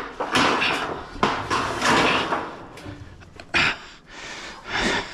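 Heavy scraping and rubbing, with two sharp knocks about three and a half and five seconds in, as an engine and transmission hanging from an engine hoist are pried and pushed across the edge of a wooden trailer deck, the oil pan catching on the trailer.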